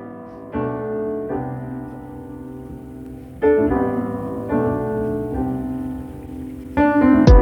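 Lo-fi background music: piano chords changing every second or so, with louder chords striking about halfway through and near the end.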